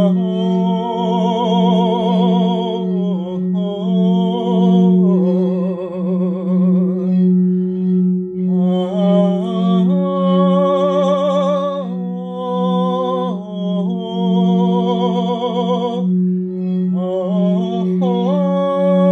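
A high-heart crystal singing bowl rings one steady tone that pulses slowly. Over it a voice tones long wordless notes with vibrato, changing pitch and breaking off every few seconds for breath.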